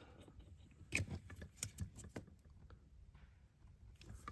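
Faint, irregular clicks and taps of plastic wiring connectors being handled and pushed together, the loudest about a second in.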